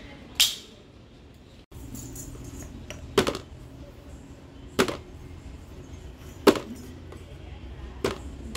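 Chapati dough being kneaded by hand on a large brass plate: five sharp knocks, about one every second and a half, as the dough is pressed down against the metal.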